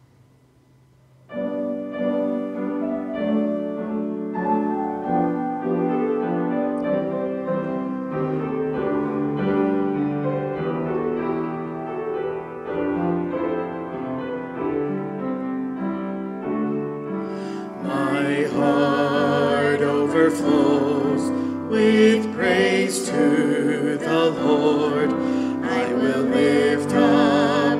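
Instrumental introduction to a worship song: piano chords start about a second in, and about eighteen seconds in a fuller accompaniment joins with sharp percussive hits.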